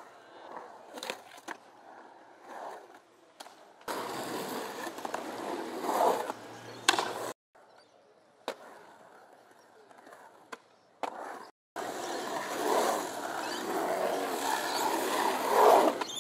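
Skateboard wheels rolling on a concrete bowl in two long runs, broken by short clacks and knocks of the board. The sound cuts off abruptly between edited clips.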